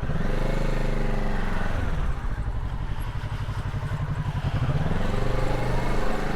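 Motorcycle engine pulling away and accelerating, its pitch climbing, dropping at a gear change about two seconds in, then climbing again.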